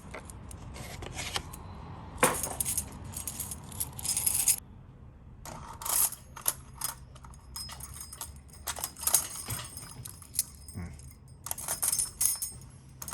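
Metal key blanks jingling and clinking in short bursts as they are handled and hung on hooks, with a brief pause a little before halfway.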